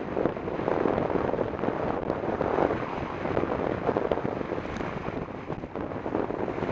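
Wind rushing over the microphone of a camera on a mountain bike descending a paved road at speed: a steady, uneven rush of noise.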